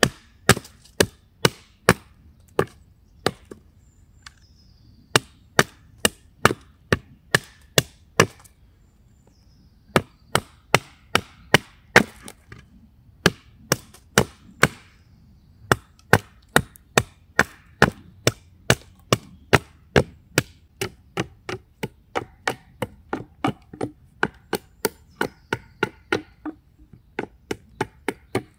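Hatchet chopping a wooden pole on a stump: sharp blows about two a second, in runs broken by a couple of short pauses. In the last third the blows come lighter and quicker.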